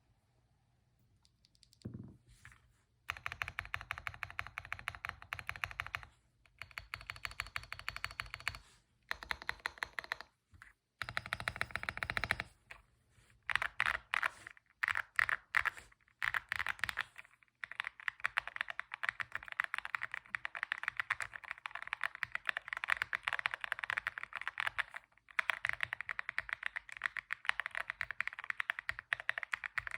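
Lucky65 V2 mechanical keyboard being typed on: fast runs of keystroke clicks with short pauses between them, getting steadier in the second half.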